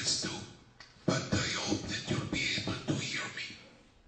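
A voice speaking in short bursts with sharp consonants, with a short pause about a second in and a longer one near the end.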